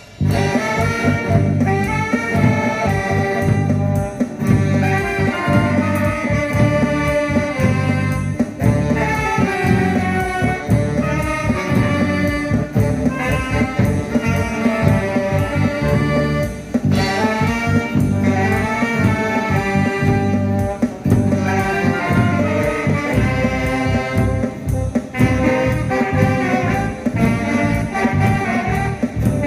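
Live instrumental music from an amateur band, with saxophone and brass lines over a steady beat, picking up right after a brief pause.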